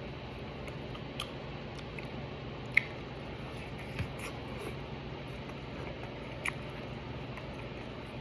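A person quietly chewing chicken, with a few short faint clicks and taps scattered through, over a steady low room hum.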